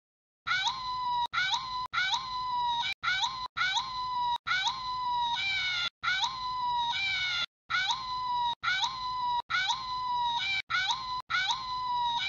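Jawa chatter: a squeaky, sped-up voice giving a string of about a dozen short calls, each sliding quickly up to a high pitch and then cut off sharply.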